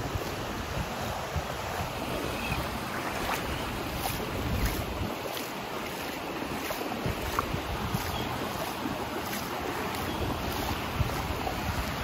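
Small surf washing over shallow water at the shoreline, with wind gusting on the microphone as an uneven low rumble.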